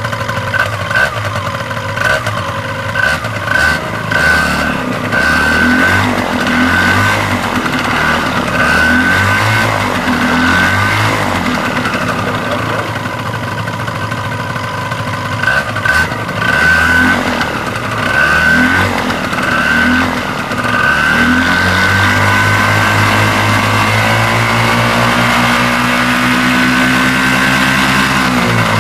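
Miniplane Top 80 paramotor's single-cylinder two-stroke engine running on a ground test after a freed, previously stuck piston ring, propeller turning: the throttle is blipped up and down repeatedly, then held at a steady higher speed for the last several seconds.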